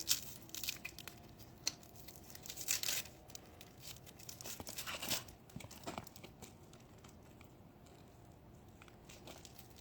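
Rustling, scraping and a few sharp clicks as the two screens of a trailer rock guard are worked and slid together to a snug fit, busiest in the first half, then quieter.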